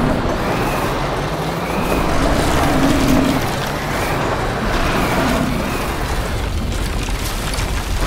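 Cartoon sound effect of a bulldozer's engine and crawler tracks running as it moves in to push the rocks: a dense, steady noise with a low rumble. Background music plays under it.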